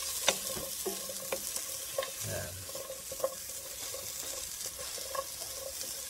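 Sliced white onion rings sizzling in a non-stick pan, with a spatula knocking and scraping against the pan every second or so as they are stirred.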